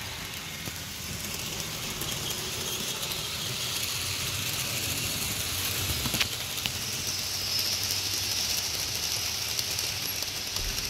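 Model trains running on the layout: the steady whirring hiss of electric model locomotive motors and wheels on the track. It grows louder about halfway through as a red model diesel locomotive passes close, with a sharp click about six seconds in.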